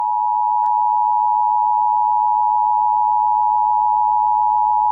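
Emergency Alert System attention tone: a steady, loud electronic tone just under 1 kHz, held without a break. It signals the severe thunderstorm warning that follows. A faint click sounds about half a second in.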